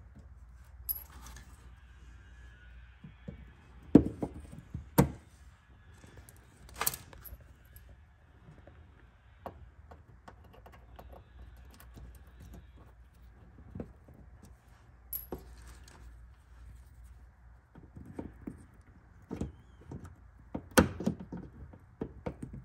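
Scattered small clicks and taps of hand tools, a micro flathead screwdriver and pliers, working plastic push rivets out of a car's wheel-arch molding. A handful of louder, sharper clicks stand out among them.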